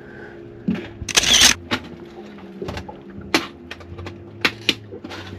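Scattered sharp knocks and clicks, with a louder short hissing rush about a second in, over a steady low hum.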